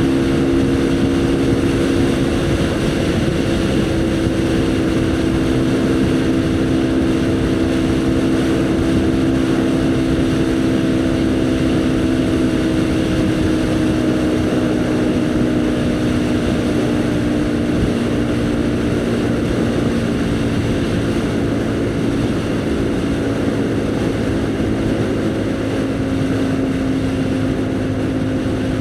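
Haojue NK150 motorcycle's single-cylinder four-stroke engine running steadily at cruising speed. Its pitch eases slightly lower over the first twenty seconds, then holds.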